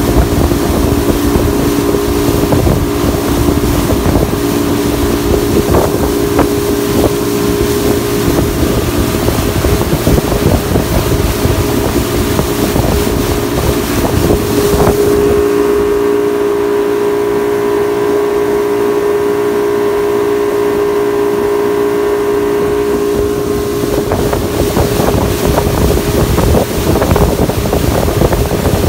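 Boat engine running steadily under way, its hum mixed with wind buffeting the microphone and water rushing past the hull. About halfway through, the wind and water noise eases for several seconds and the engine's steady hum stands out alone.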